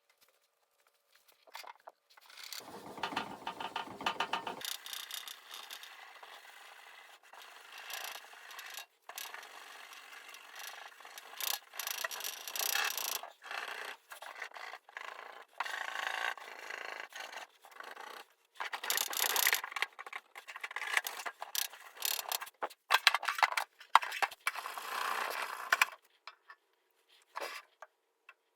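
Hand scraping and rubbing on a steel tool case, stripping spray paint off it, in uneven strokes. The scraping starts about a second and a half in and stops a couple of seconds before the end.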